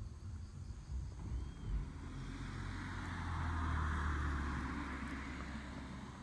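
A vehicle passing by: tyre hiss and engine rumble swell to a peak about four seconds in, then fade away. A few soft knocks and scuffs come in the first two seconds.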